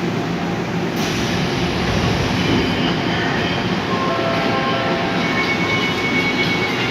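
Seoul Subway Line 5 train running with a steady rumble; from about three seconds in, several thin whining tones come in over it.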